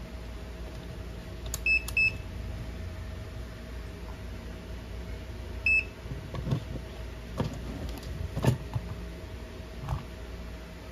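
Digital clamp meter beeping as its buttons are pressed: two short beeps about two seconds in and one more near six seconds. Then a few knocks as the meter is handled and set down, over a faint steady hum.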